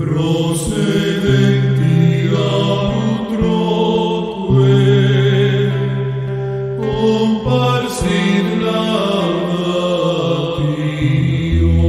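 Slow sacred music during adoration of the Blessed Sacrament: long held chords that change every few seconds, with a melody above them.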